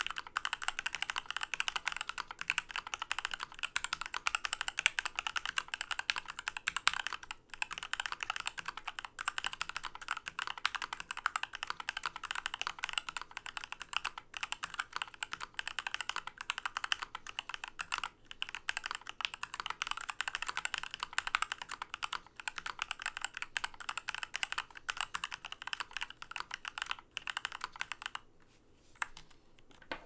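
Fast, continuous typing on a Keychron K4 mechanical keyboard fitted with lubed, filmed Gateron Black Ink v2 linear switches and DSA PBT keycaps on a stainless steel plate, in a tape- and foam-modded case. It is a dense run of key strokes that breaks off briefly a few times and stops about two seconds before the end.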